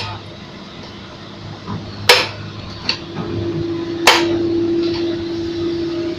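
Sharp metal clanks about every two seconds, with a steady hum coming in about halfway through.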